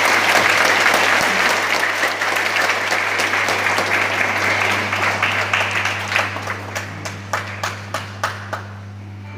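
Congregation applauding: a dense round of applause that thins to scattered single claps about six seconds in and dies away near the end.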